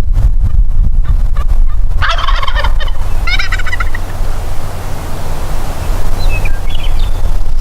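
Wild turkey tom gobbling twice, about a second apart, each a rapid rattling call, over a steady low rumble. A few faint, short higher notes follow near the end.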